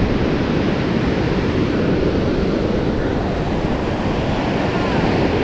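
Steady rush of surf at the shoreline, with wind buffeting the microphone.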